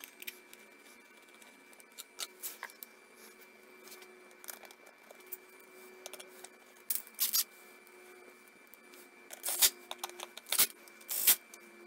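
A plastic engine cover being fitted back in place by hand, with scattered clicks and knocks of plastic on metal. Near the end a cordless screwdriver drives the cover's screws in a few short, loud bursts.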